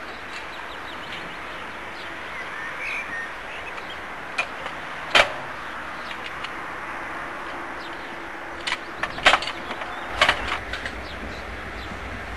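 Metal clanks of a railway ground frame's levers being worked by hand to set the points. There are several sharp knocks, the loudest about five and nine seconds in, over a steady hiss, and a low rumble comes in near the end.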